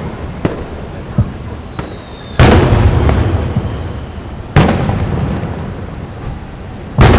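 Aerial firework shells bursting: three large booms about two seconds apart, with a few smaller cracks between them. A thin whistle, dropping slightly in pitch, runs for over a second and ends as the first big boom goes off.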